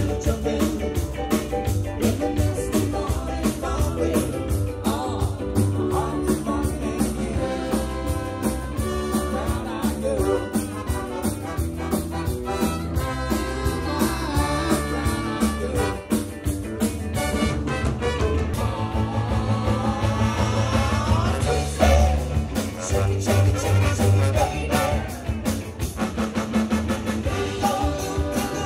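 Live band music: an upbeat song with a steady drum-kit beat and singing.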